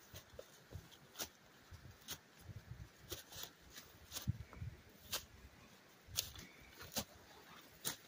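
Footsteps pushing through dry brush: irregular crunches and sharp twig snaps, about one or two a second, with soft low thumps between them.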